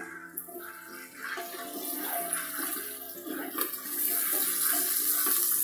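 Chopped green chillies and cumin seeds sizzling in hot mustard oil in an aluminium pressure cooker, the sizzle growing louder over the first few seconds. A spoon scrapes and clicks against the pot now and then as it is stirred.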